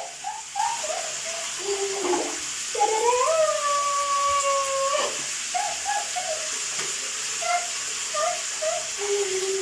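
A woman's high voice in wordless calls: one long, high drawn-out whoop about three seconds in, then short bursts of laughter.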